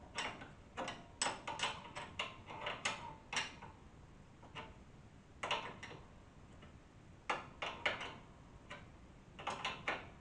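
Metal spanner clicking on a 14 mm nut in a motorcycle front fork as the nut is loosened: irregular clusters of short, sharp metallic clicks with pauses between them.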